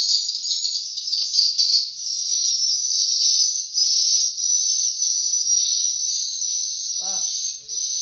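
Edible-nest swiftlets twittering in a dense, unbroken chorus of high chirps.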